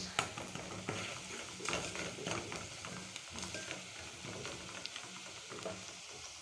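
Sliced red onions frying in oil in a metal pot, with a steady sizzle. A wooden spoon scrapes and taps against the pot many times as they are stirred.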